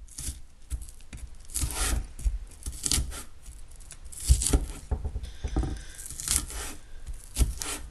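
Kitchen knife slicing through spring onion into thin strips on a cutting board: irregular crisp cutting strokes, roughly one a second, some with a knock of the blade on the board.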